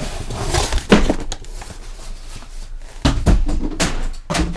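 A cardboard shipping box being tipped up and emptied, the smaller boxes inside sliding and thudding out onto a table: a series of knocks and bumps with cardboard rustling between them, the loudest knock about a second in and a cluster of thumps near three seconds.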